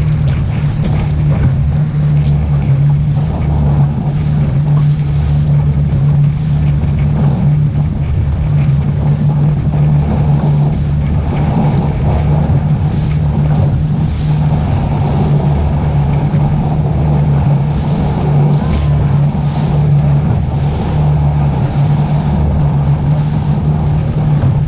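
A 200 hp outboard motor running steadily as a fishing boat travels at speed across choppy water, with water rushing along the hull and wind on the microphone.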